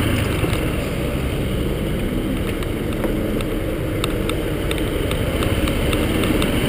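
Yamaha XTZ125 motorcycle's single-cylinder four-stroke engine running steadily at low revs as the bike creeps along in slow traffic.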